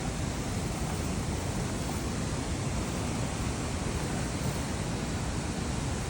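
Steady outdoor rushing noise, heaviest in the low end and fluttering unevenly, with no distinct events.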